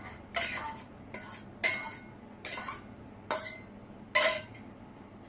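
A utensil clinking and scraping against a bowl about six times, each stroke with a short ringing tone, as beaten egg is spooned out over the dish.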